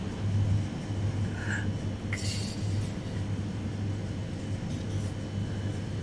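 Steady low electrical hum of a glass-door drinks refrigerator's cooling compressor and fan, with a short brushing noise about two seconds in.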